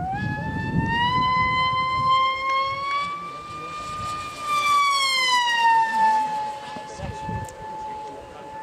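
High-pitched whine of an electric RC hotliner's motor and propeller at full speed, its pitch climbing, then sliding down as the plane passes, then climbing again near the end. A few low rumbles of wind on the microphone sound beneath it.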